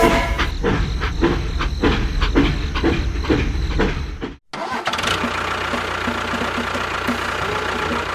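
A small engine running with a regular chugging beat of about three strokes a second. About four and a half seconds in it cuts off abruptly and gives way to a steadier, busier machine running.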